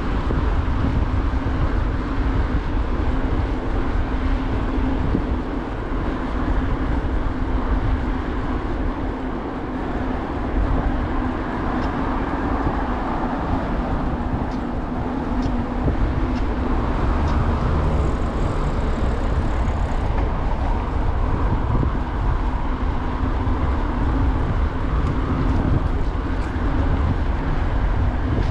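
Steady road and wind noise from a moving bicycle: air rushing over the handlebar-mounted microphone and tyres rolling on asphalt, with car traffic in the background. A few light clicks around the middle.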